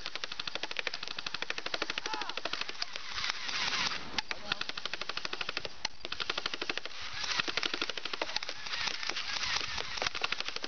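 Airsoft machine guns firing on full auto: a rapid, continuous stream of sharp clicking shots.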